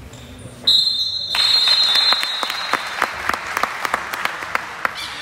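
A whistle blows one steady high note, about a second in, then scattered hand clapping, sparse enough that single claps stand out.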